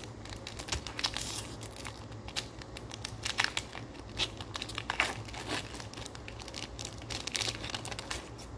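Foil wrapper of a Pokémon trading-card booster pack being torn open and crumpled by hand, with irregular crinkling crackles throughout.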